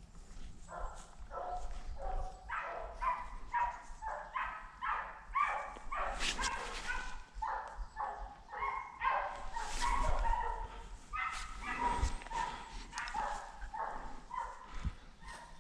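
Hunting dogs barking in a long, steady run of barks, about two to three a second, while working game on a driven wild boar hunt.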